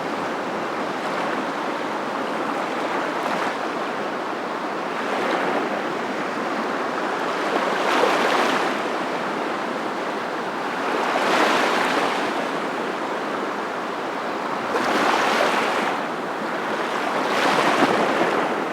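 Waves washing ashore: a steady rush of surf that swells and falls back every few seconds.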